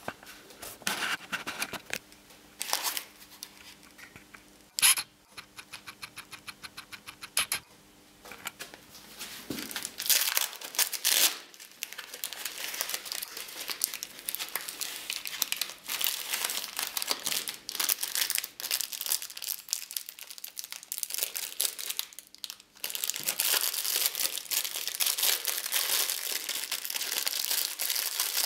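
Plastic packaging crinkling and tearing as a small parcel is unwrapped by hand: a padded plastic pouch, foam wrap and a clear plastic bag. A quick run of even clicks a little after the fifth second, then near-continuous crinkling from about ten seconds on.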